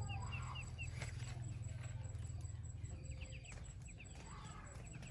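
Bird chirping: two quick runs of short high chirps, about five a second, one at the start and one about three seconds in, over a steady low hum.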